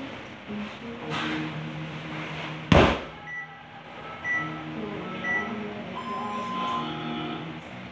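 A 150 lb sandbag thrown over the shoulder lands on the gym floor with one loud thud a little under 3 seconds in. Then a workout timer sounds three short countdown beeps a second apart and a longer final beep marking the end of the interval.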